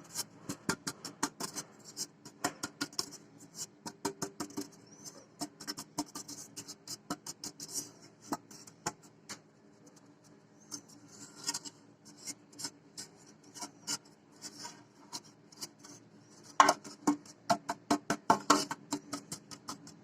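Flour being tapped and shaken around the inside of an oiled cake tin to coat it: a long run of quick, light, irregular taps and rattles, louder and thicker about three-quarters of the way through.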